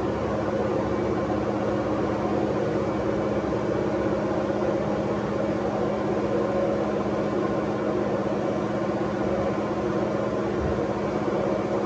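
Steady machine hum with a few held low tones over an even rushing noise, like a ventilation or air-handling fan running without change.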